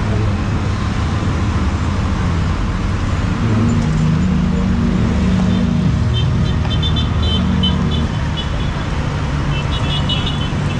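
Motor vehicle running with a steady low rumble and road noise. Short high chirps come in about halfway through and again near the end.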